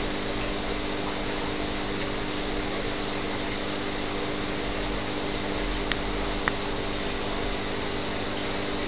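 Steady machine hum with hiss, with a few light clicks: one about two seconds in and two close together about six seconds in.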